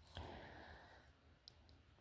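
A couple of faint small clicks at the start, a moment of light handling noise and one more tiny tick: small slot car motor parts being fiddled into place by hand, otherwise near silence.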